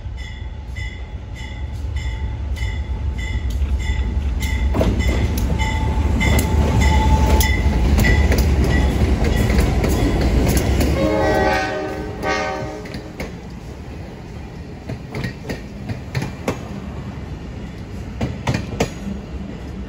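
A CSX track geometry train led by a GE B40-8 diesel locomotive passing close by: the engine's rumble builds to a peak, a short horn blast sounds about 11 seconds in, then the wheels clack over the rail joints as the cars roll past. A bell rings steadily, about twice a second, through the first half.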